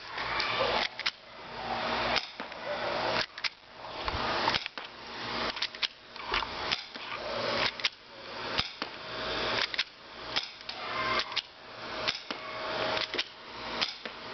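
AS-240 Airstrike spring airsoft pistol being fired over and over, about a dozen sharp snaps roughly once a second. Each snap is preceded by a rasping noise that swells up into it, the pistol being cocked between shots.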